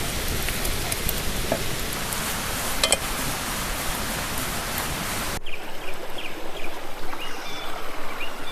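Sausages and eggs sizzling in a frying pan: a steady hiss with a few pops. About five seconds in it cuts off abruptly, leaving a quieter background with small birds chirping.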